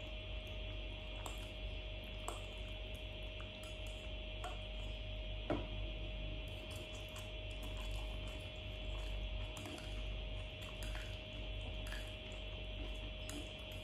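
Someone eating instant noodles: a metal fork scraping and clinking on a glass plate in scattered light taps, with a sharper clink about five and a half seconds in, and chewing and slurping of noodles. A steady electrical hum runs underneath.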